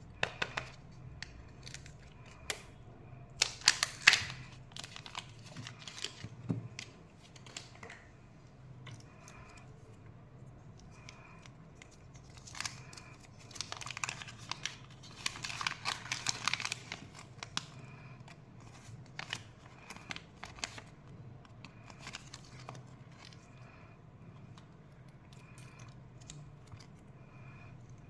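Kinder Joy wrapper being torn open and crinkled by hand, with quieter handling clicks in between. The loudest tearing comes about four seconds in and again in a longer stretch from about thirteen to seventeen seconds.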